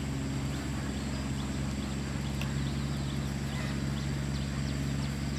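Steady low hum of a motor running at an even speed, with faint high chirps over it.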